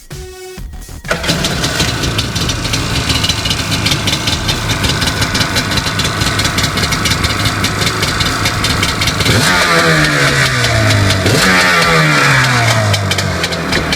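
Kawasaki 800 SX-R stand-up jet ski's two-stroke twin engine starting up about a second in and running, then revved twice near the end, the pitch falling back after each blip.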